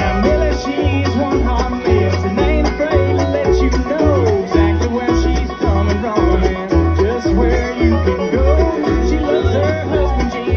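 Live bluegrass band playing an up-tempo tune on fiddle, banjo and guitar, with a steady low bass note about twice a second.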